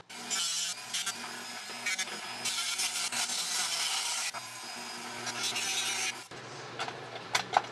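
Corded rotary tool grinding at the edge of a laptop cooling fan's housing to trim it down, in several uneven passes with the motor's hum under the grinding. It stops about six seconds in, followed by a few light clicks.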